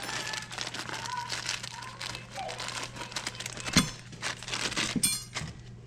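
Packaging of a stretch-fit belt installation kit crinkling and rustling as it is handled and opened, with a sharper tap about four seconds in.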